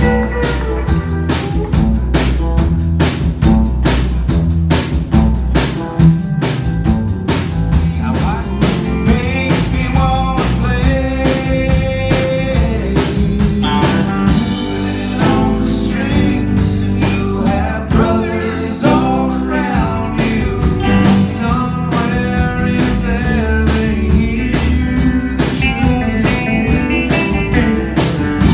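Live rock band playing, with electric guitars over a drum kit keeping a steady beat.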